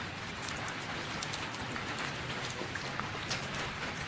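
Plastic packing tape on a cardboard box being slit with a knife and peeled open: a dense, steady crackle of many small ticks.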